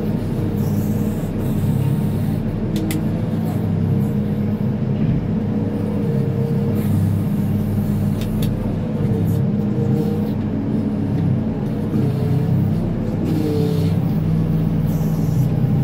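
Manitou MLT 737 telehandler's diesel engine running steadily, heard from inside the cab. Its pitch shifts slightly up and down as the boom and bale grab are worked.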